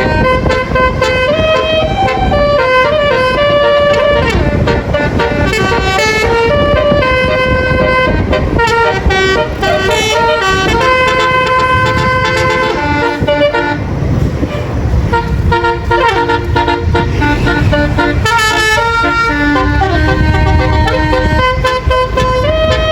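Sanjaya Trans bus's basuri 'telolet' horn, a multi-tone musical horn, playing a melody of held notes that step up and down. It thins out for a couple of seconds past the middle, where road and engine noise comes through.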